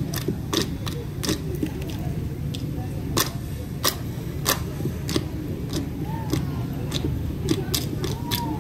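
Ratoeh Jaroe dancers clapping and slapping in unison, sharp claps at a steady beat of about one every two-thirds of a second, over a low steady rumble and faint voices.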